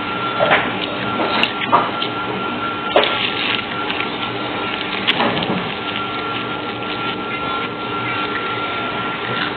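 Rustling and crackling as food is handled by hand, with several sharp crackles in the first few seconds, over a steady hiss carrying a faint constant whine.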